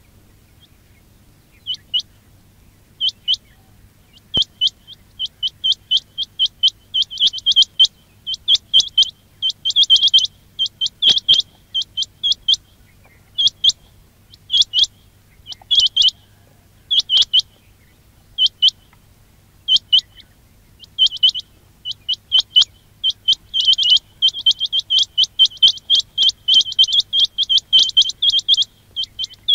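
Quail calling: short, sharp high chirps repeated in quick runs, starting about two seconds in, sparse at first and coming thick and fast near the end.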